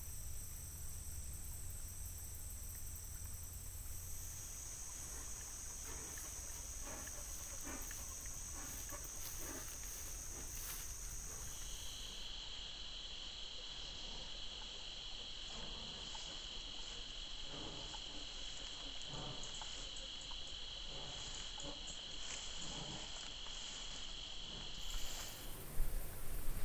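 Insects buzzing steadily in thin, high, unbroken tones on a trail camera's microphone, the pitch dropping to a lower pair of tones about halfway through. Near the end a louder, uneven noise comes in.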